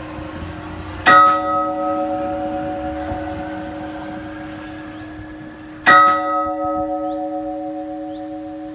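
Church bell tolling: two single strikes about five seconds apart, each leaving a long hum that fades slowly.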